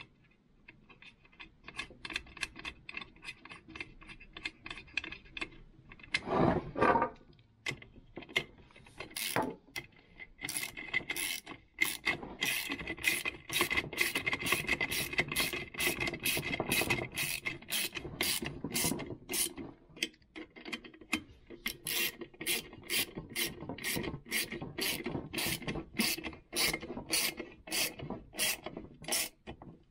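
Socket ratchet wrench clicking in quick back-and-forth strokes, about two a second from roughly ten seconds in, as it runs the nuts down onto a chainsaw's muffler studs. Before that come lighter scattered clicks and rubs as the nuts and muffler are handled.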